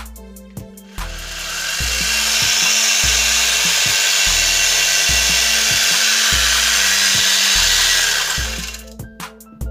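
A cordless angle grinder with a homemade chainsaw attachment runs its Stihl bar and chain free. It spins up about a second in, runs steadily for about seven seconds and winds down near the end, over background music with a steady beat.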